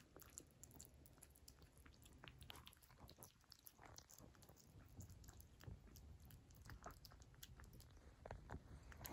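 A kitten chewing wet cat food: faint, quick, irregular wet clicks and smacks of its mouth at the food.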